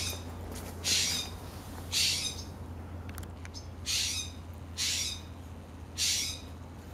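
Harsh, raspy bird call repeated about once a second, each call short, over a steady low hum.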